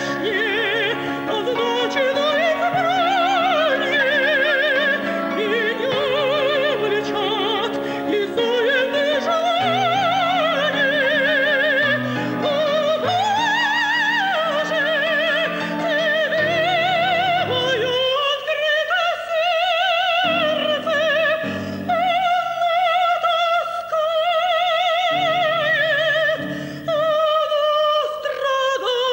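A woman singing in classical operatic style, her high voice holding long notes with wide vibrato, over steady instrumental accompaniment.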